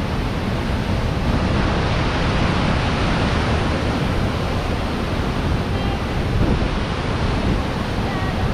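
Apikuni Falls and the creek cascading below it: a loud, steady rush of falling white water.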